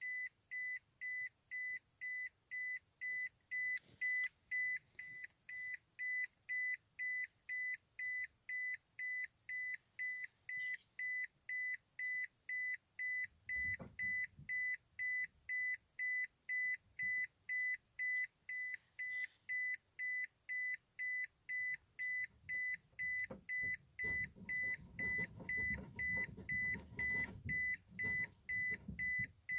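A car's dashboard warning chime beeping steadily, about two high-pitched beeps a second. A low rumble from the car moving over the dirt track rises briefly about 14 seconds in and again for several seconds near the end.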